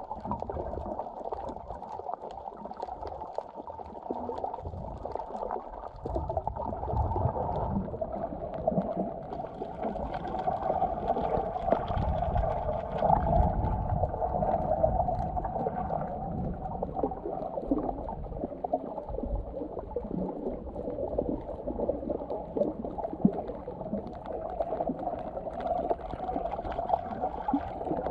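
Muffled underwater sound picked up by a camera below the surface while snorkeling: water gurgling and sloshing against the camera with a low rumble and faint crackling, growing somewhat louder partway through.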